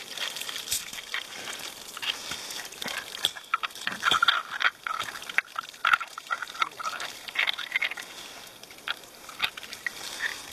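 Water running from a plastic water jug's spigot over hands rubbing sticky clay off a carnelian agate: irregular wet squelching and splashing.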